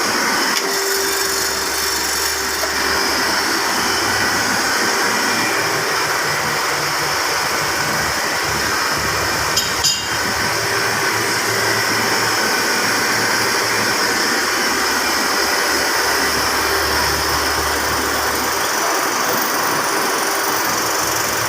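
Biomass pellet burner firing a baking oven, running with a steady rushing noise of blower fan and flame over a faint low hum. A brief click about ten seconds in.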